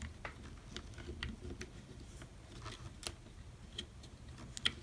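Scattered light clicks and taps of small plastic and metal parts being handled inside an opened cordless electric staple gun, at irregular intervals.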